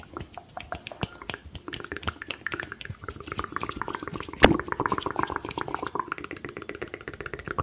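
Fast close-up ASMR mouth sounds: a dense run of wet clicks and pops, with one louder pop about four and a half seconds in.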